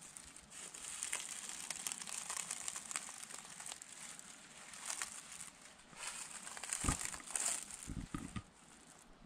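Footsteps crunching and crackling through dry fallen leaves, with a few dull low thumps near the end.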